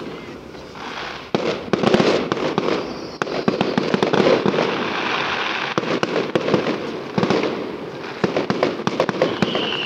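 Aerial fireworks going off: a rapid run of bangs and crackling bursts that thickens about a second in and keeps up to the end.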